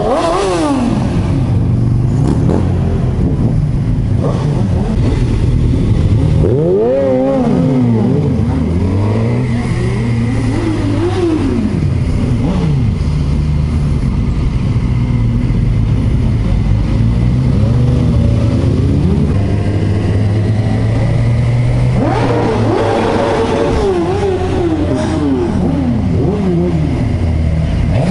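Sport motorcycle engines running through town at low speed, revving up and down over and over as the riders roll on and off the throttle and shift gears, over a steady low engine hum.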